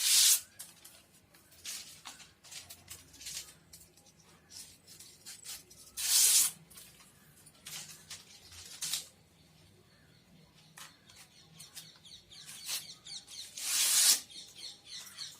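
Coconut palm leaves being torn to strip the leaflets off their midribs for skewer sticks: short dry ripping and scraping sounds. The three loudest rips come at the start, about six seconds in, and near the end.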